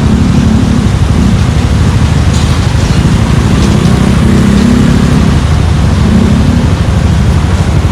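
Suzuki Gixxer 155's single-cylinder engine and exhaust running while riding, its note swelling and easing with the throttle.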